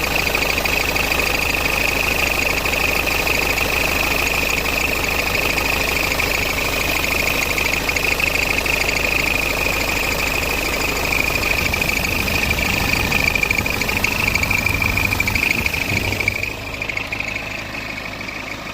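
BMW N47 four-cylinder diesel idling with a steady high-pitched squeak running over the engine noise, the squeaky noise of the F10 520d that is the subject here; the engine sound and the squeak fall away about sixteen seconds in.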